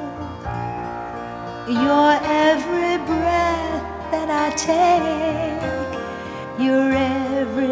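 Background music: a slow love-song ballad, its melody held with a wavering vibrato over soft sustained backing.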